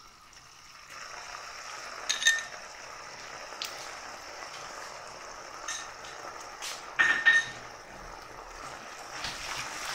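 Sugar syrup made with ghee and milk boiling steadily in a non-stick frying pan, a continuous fizzing bubble. A metal spoon clinks against the pan a few times as spoonfuls of yogurt go in. The loudest clink comes about seven seconds in.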